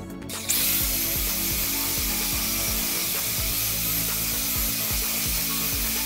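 Makita belt sander running steadily on a wooden block, its sanding belt giving a loud, even hiss that starts abruptly about half a second in.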